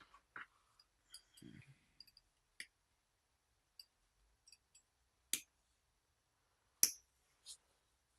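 Light clicks and taps of small hand work, trimming sticky tape close on a micro quadcopter's frame, with two louder sharp clicks about five and seven seconds in.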